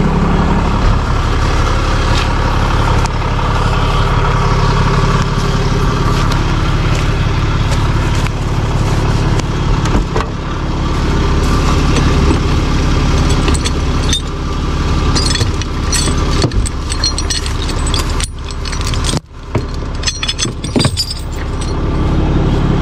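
Ram tow truck's engine idling steadily close by. From about halfway through, metal clinks and jingles of chains and tools being handled in the truck's side toolbox.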